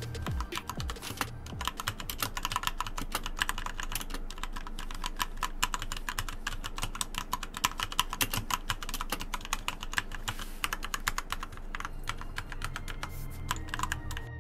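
Fast typing on the Cooler Master MK730 mechanical keyboard with Cherry MX switches, a dense run of key clicks and keycap clacks.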